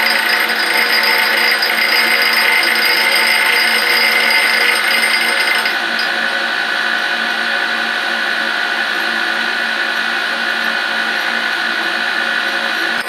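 Abrasive wheel of a Rockwell/Delta grinder grinding the helical flute of an end mill, a steady hiss over the wheel motor's hum. About six seconds in the grinding hiss falls away and the grinder keeps running.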